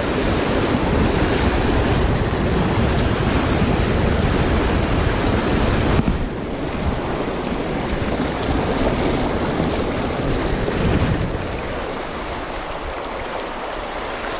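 Steady rush of a shallow, rocky river riffle, with wind buffeting the microphone. There is a brief knock about six seconds in, and the wind rumble eases near the end.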